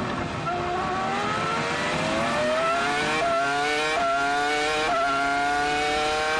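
Williams-BMW Formula 1 car's 3.0-litre V10 engine heard from onboard, pulling hard from low revs with its pitch climbing steadily. It shifts up quickly three times, each shift a brief sudden dip in pitch before it climbs again.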